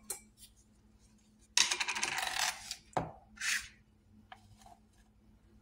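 Plastic screw lid being twisted off a tub of citric acid: a quick run of rattling clicks about a second and a half in, then a sharp click and a short rustle as the lid comes away, and a few faint ticks.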